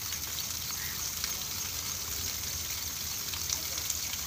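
Steady high-pitched hiss of background noise with faint scattered crackles.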